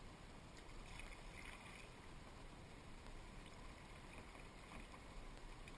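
Faint kayak paddling: a paddle blade dipping and dripping in calm creek water, with a soft splash about a second in.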